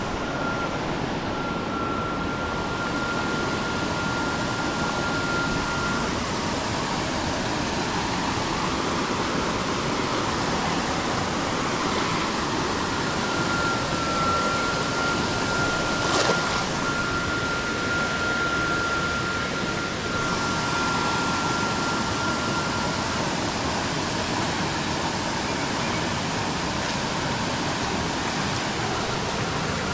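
Stream water rushing steadily, a full even wash of water noise. A thin, steady high tone sounds over it for a few seconds at the start and again for about ten seconds in the middle, and there is a single sharp click about halfway through.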